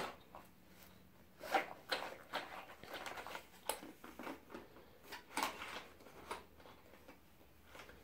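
Scattered light clicks and brief rustles of wooden colored pencils and a cardboard pencil box being handled, a few strokes a couple of seconds apart.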